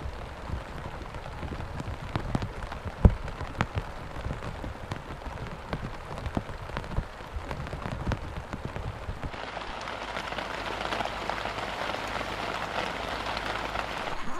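Heavy rain falling, with many separate drops ticking sharply on a surface and one louder knock about three seconds in. About nine seconds in, it turns into a denser, steadier rain hiss.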